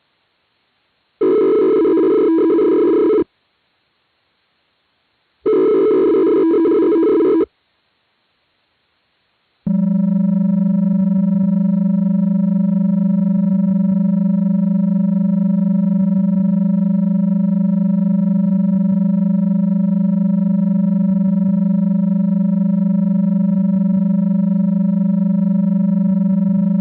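Synthetic emergency-alert tones: two harsh electronic data bursts of about two seconds each, separated by silence, then from about ten seconds in a long, loud, steady buzzing alert tone. This is the header-and-attention-signal sequence that precedes an alert message.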